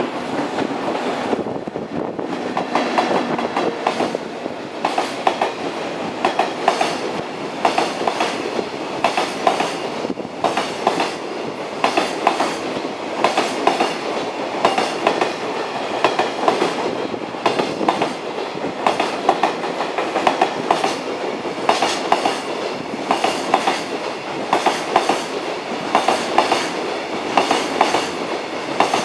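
A freight train of container flatcars, led by an EF64 electric locomotive, passing at speed through a station. The wheels clatter over rail joints in repeating groups of clicks, about one group a second, over a steady rolling rumble.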